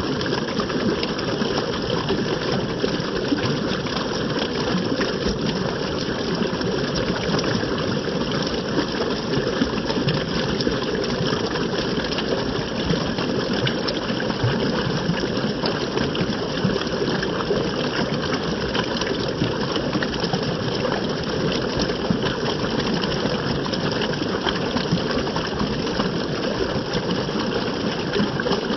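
Running water rushing and splashing in a continuous, even gush, with no change in strength.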